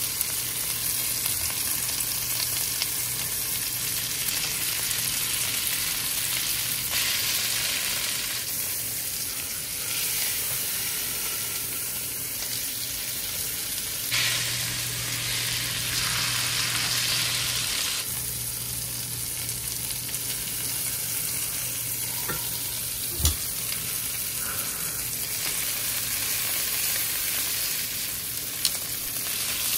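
Prime top sirloin steak sizzling in hot fat in a cast iron skillet, a steady frying hiss. A couple of brief sharp clicks stand out in the last third.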